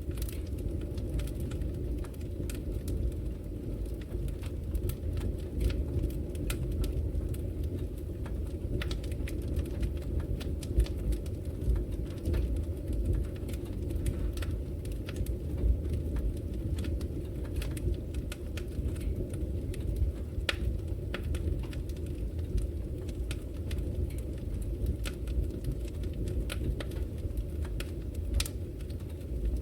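Fire burning in a brick fireplace: a steady low rumble of the flames with frequent irregular crackles and sharp pops.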